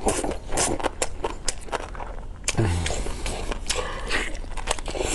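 Close-miked eating sounds: chewing and smacking on meat, a rapid irregular run of sharp mouth clicks, with a short low thump about two and a half seconds in.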